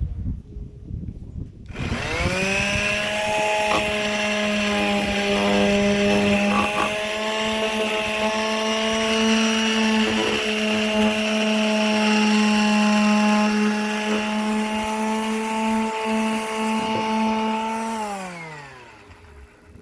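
Electric sander spinning up about two seconds in after some clattering, running at a steady hum while sanding the backhoe for about sixteen seconds, then winding down with a falling pitch near the end.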